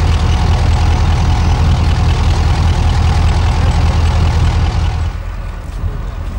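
Class 35 Hymek diesel-hydraulic locomotives with Maybach engines idling, a loud steady low drone. About five seconds in it cuts off abruptly to a much quieter background.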